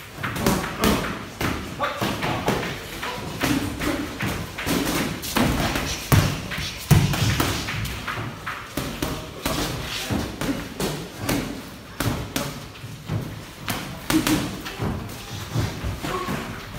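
Boxing sparring: gloved punches thudding and smacking in quick, irregular succession, with voices in the background.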